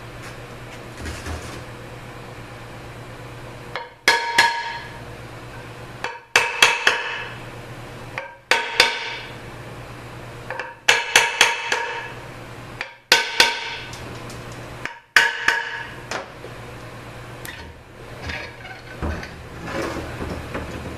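Hammer blows on a 5L40E automatic transmission's cast bell housing to break it loose from the case, in groups of one to three strikes about every two seconds, each ringing out metallically. Near the end, softer knocks and scrapes as the loosened housing is lifted off.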